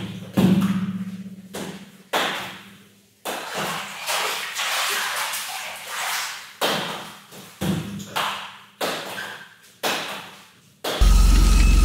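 Small plastic balls bouncing on the tiled floor and walls of an empty pool, about a dozen separate knocks, each followed by an echo. Music comes in near the end.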